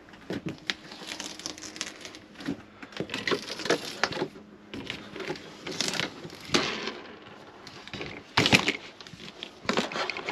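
Old plastic window trim strip being pulled out of the channel in a caravan window frame: irregular crackling, rustling and scraping, with a louder snap about eight and a half seconds in.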